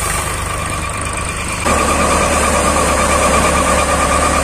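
Shakti nine-fan paddy thresher driven by a Sonalika DI 42 RX 42 HP tractor, running steadily at working speed: the tractor engine's low drone with a steady whine from the thresher's drum and fans. The sound becomes louder and closer about a second and a half in.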